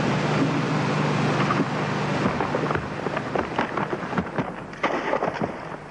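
Steady murmur of a crowd in a large sports hall over the hiss and low hum of an old VHS tape, followed in the second half by a scatter of sharp cracks and knocks as the noise dies down.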